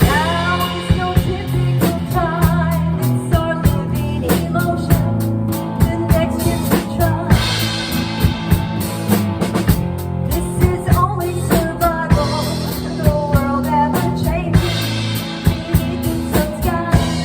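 Original song playing: band music with a drum kit keeping a steady beat under sustained bass notes and a wavering melody line.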